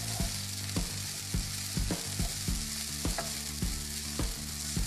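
Fusilli with asparagus sizzling in olive oil in a frying pan, stirred with a wooden spatula that knocks lightly against the pan about twice a second.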